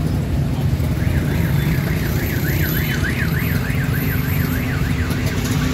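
Auto-rickshaw engine running in city traffic, joined about a second in by a warbling electronic alarm tone that rises and falls several times a second and stops near the end.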